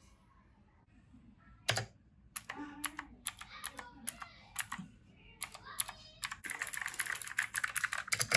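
Gamdias Hermes M5 mechanical keyboard being typed on, the keys clacking. A sharp single click comes first, then scattered keystrokes, then a fast continuous run of typing near the end.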